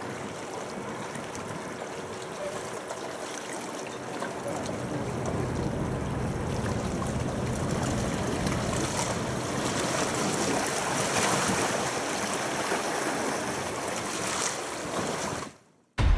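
Outdoor seaside ambience: wind on the microphone and sea water washing at the shore. A low, steady rumble joins about five seconds in. The sound cuts out abruptly near the end.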